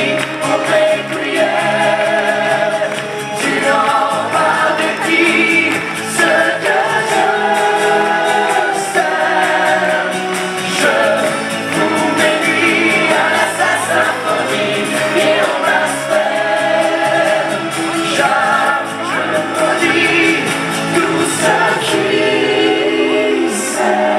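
Stage musical cast singing together as an ensemble, with violins, cello and acoustic guitar in a live band, heard from the audience in a large hall.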